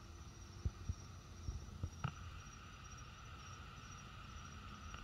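Night insects, crickets, chirping in a faint, steady high pulsing trill over a low rumble, with a few soft low thumps in the first two seconds.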